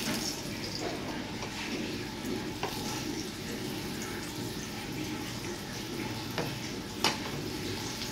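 Aloo paratha frying in oil on a pan, a steady sizzle, with a few sharp clicks of a metal spatula against the pan.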